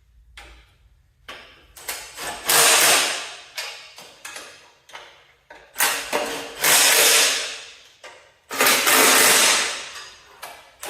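A power tool with a 1/2 inch socket runs in three short bursts, about two, six and eight and a half seconds in, each trailing off as it stops. It is driving and tightening the bolts that hold a garden tractor's battery tray to the frame, with small knocks of metal parts in between.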